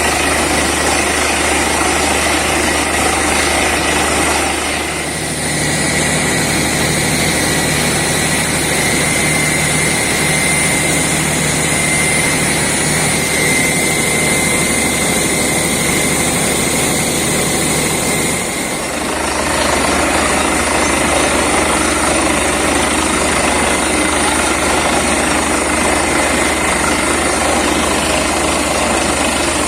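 Borewell drilling rig and its air compressor running steadily. An extra steady engine note joins about five seconds in and drops away about ten seconds before the end.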